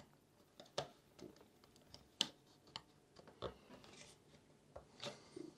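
Faint, scattered light clicks and soft scrapes of hard plastic parts being handled as a circuit board is slid into a 3D-printed plastic housing.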